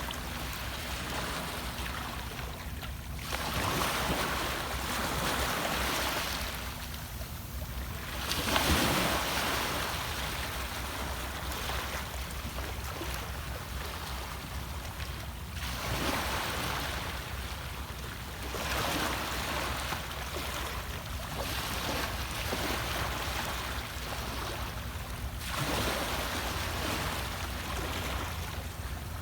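Sea waves breaking in repeated surges, a new one every three to seven seconds, the loudest about nine seconds in, over a steady low rumble.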